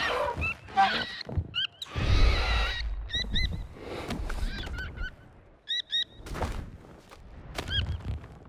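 Animated puffins giving many short, high-pitched calls in quick series. About two seconds in there is a louder rushing noise lasting under a second, and a few sharp knocks later on.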